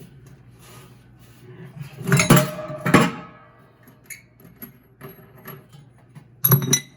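Metal washer parts clanking together, with a short ringing after each hit: two loud clanks about two and three seconds in, then a quick cluster of sharper clinks near the end.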